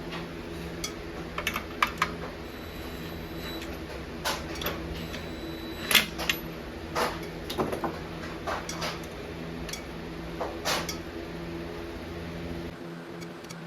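Metal lathe running in reverse with a brake drum mounted on it, giving a steady motor hum, with scattered metallic clicks and taps as the drum's lug nuts are snugged to let it self-centre. The low rumble drops away near the end.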